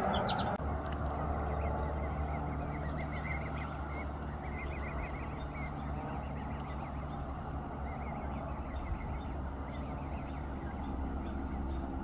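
Canada goose goslings peeping, a long run of quick, high chirps, over a steady low rumble.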